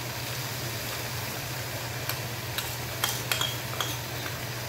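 Cabbage, bell pepper and onion sizzling in a pan over a high gas flame, with a spatula clicking and scraping against the pan several times from about two seconds in as the filling is stirred. A steady low hum runs underneath.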